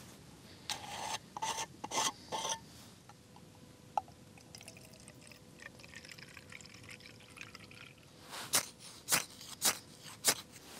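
Fuel trickling from a bottle into a brass spirit burner in the middle stretch, with a few handling clicks before it. Several sharp metallic knocks follow near the end as the burner is set into a folding metal stove.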